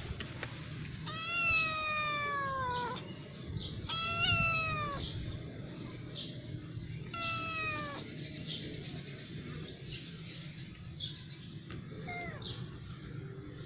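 Domestic cat meowing: three long meows a few seconds apart, the first and third sliding down in pitch and the middle one rising then falling, then a short meow near the end.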